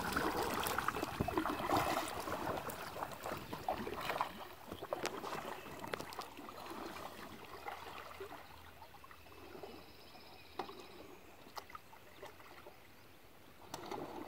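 Kayak paddle strokes dipping and splashing in lake water, with water sloshing along the hull. The sound grows fainter over the first half as the kayak moves away, leaving scattered small splashes.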